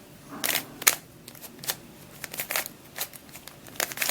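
Shengshou Square-1 twisty puzzle being turned by hand: a string of irregular plastic clicks and clacks as its layers are twisted and sliced.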